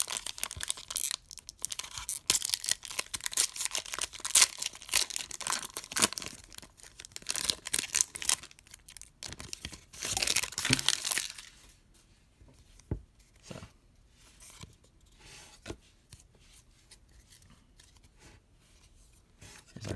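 Foil wrapper of a 2014 Bowman Draft baseball card pack crinkling and tearing open, a dense run of crackles lasting about eleven seconds. After that the cards are handled more quietly, with a few sharp clicks.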